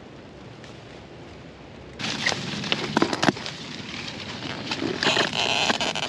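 Faint steady hiss, then, suddenly about two seconds in, pepper plant leaves and stems rustling, with sharp snaps and clicks, as hands push into the plant to pick peppers.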